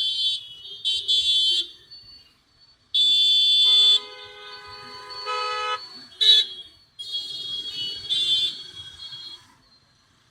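Vehicle horns honking in traffic: several short, high-pitched toots, with a lower-pitched horn held for about two seconds in the middle.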